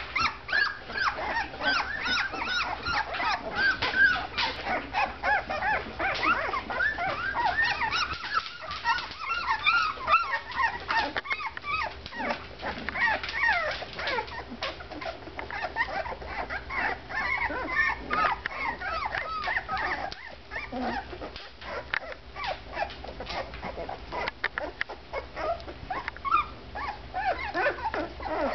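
A litter of two-week-old puppies whimpering and squeaking, many short high cries overlapping one another.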